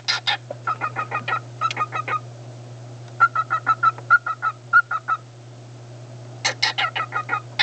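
Pet parrot calling in rapid series of short repeated notes, about five a second, in three or four bouts separated by brief pauses.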